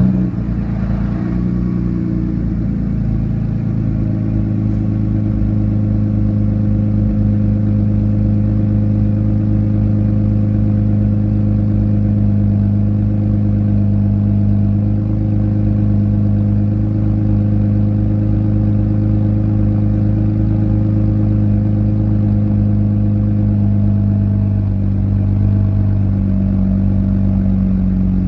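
2012 Jeep Wrangler JK's 3.6-litre V6 idling steadily just after starting. It runs through a straight-pipe exhaust: the muffler is cut off and only the factory resonator is left.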